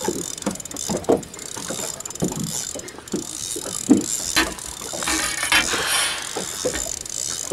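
Fishing reel being wound in while a fish is played on the rod: a continuous ratcheting whir from the reel's gears, with irregular knocks.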